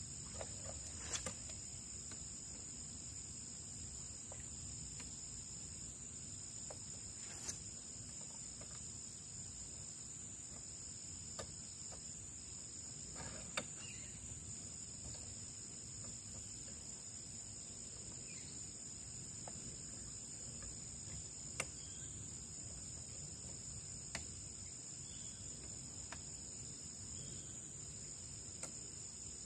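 Steady high-pitched chirring of insects in the surrounding grass and trees, one layer pulsing on and off over a constant one. A few sharp clicks and taps cut through it as parts of the outboard motor are handled.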